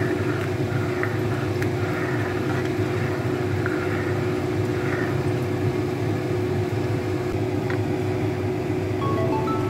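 Steady mechanical hum with one held tone, like a fan or appliance motor running, with a few faint taps of a plastic spoon stirring custard powder into milk in a pan.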